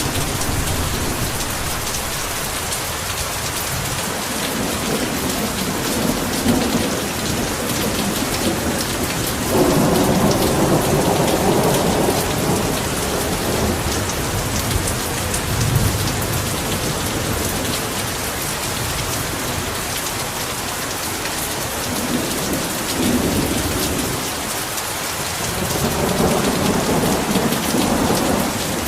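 Heavy rain falling steadily, with low rolls of thunder swelling about ten seconds in and again near the end.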